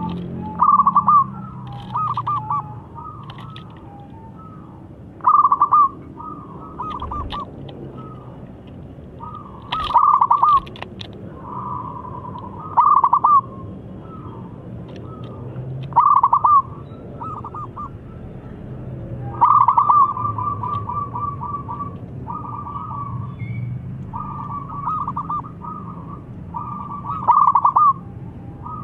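Young zebra dove (perkutut) calling, thick-voiced, in short repeated phrases of quick staccato coos, one phrase every couple of seconds, over a low background hum.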